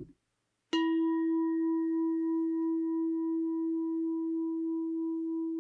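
A meditation bell struck once, about three-quarters of a second in, ringing on in one steady low tone with a few fainter higher overtones, wavering slightly as it slowly fades.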